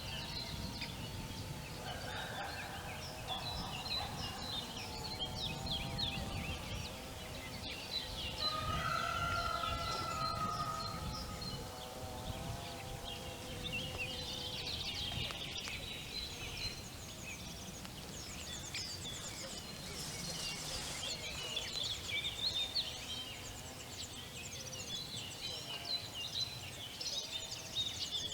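Village spring ambience: songbirds chirping and twittering throughout. Poultry, most likely a turkey, calls in long wavering tones over the first half. A low rumble runs underneath.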